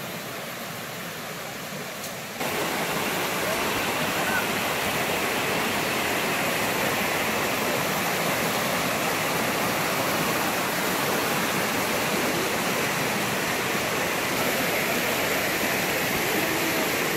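Fast, shallow water rushing over rocks in a rocky hill stream: a steady rush that jumps louder about two seconds in and then holds.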